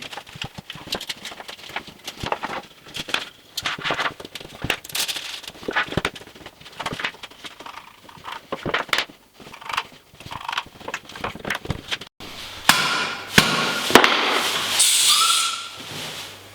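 Irregular knocks, taps and clicks from work on timber floorboards. After a sudden break, a louder stretch of scraping and clatter follows.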